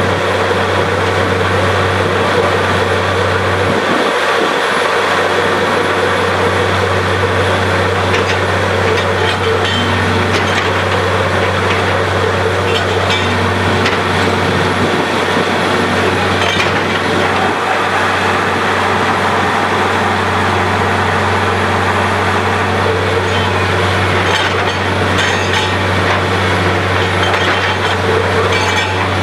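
Borewell drilling rig running steadily, a constant low engine hum under loud grinding noise, with a few scattered knocks.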